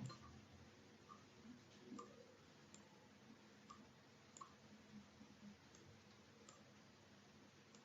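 Faint, irregular computer mouse clicks over near-silent room tone.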